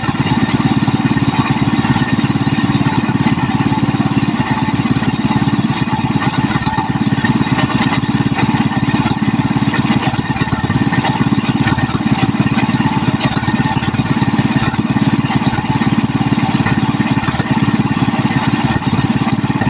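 Yamma 18 HP single-cylinder gasoline engine running at a steady speed, a fast even chugging of firing pulses.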